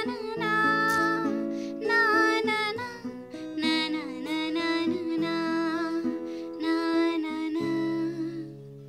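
Acoustic guitar chords with a voice singing the melody over them; the music fades away near the end.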